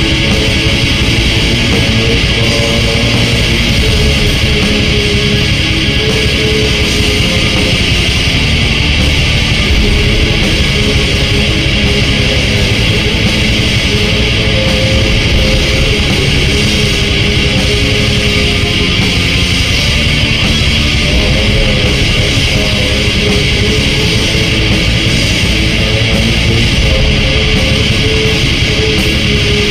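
Symphonic black metal recording: a dense, steady wall of distorted electric guitars with a sustained melody line held above it.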